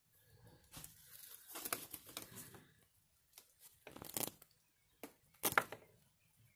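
Vertical blind slats rustling and clattering as they are pushed aside, then two sharper clacks from the patio door being opened, the louder one near the end.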